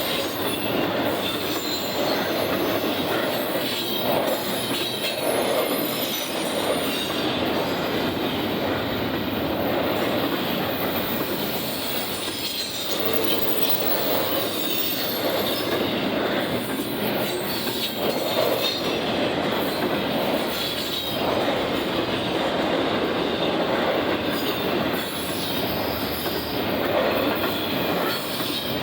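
Union Pacific intermodal freight train rolling past, a steady unbroken noise of its cars' wheels running on the rails, with thin high-pitched wheel squeal on and off.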